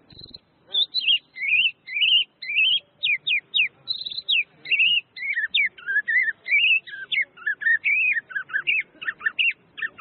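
White-rumped shama (murai batu) singing. It gives a fast run of varied clear whistled notes, each sliding up or down in pitch, starting just under a second in.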